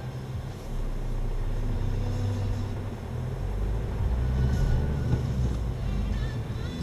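Car engine heard from inside the cabin, pulling away from a standstill: the hum grows louder a little under a second in as the revs climb to about 1,900 rpm, then settles as the car rolls slowly on.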